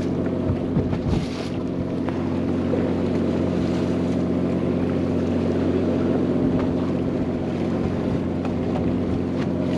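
Fishing boat's engine running steadily with an even, unchanging hum.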